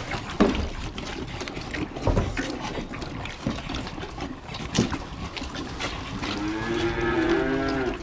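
Holstein calves at a feed trough: a few scattered knocks, then one long calf moo starting about six seconds in.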